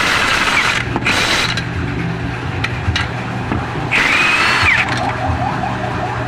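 A steady mechanical hum, engine-like, with three short loud bursts of hissing, whining noise over it; the last burst ends in a falling whine.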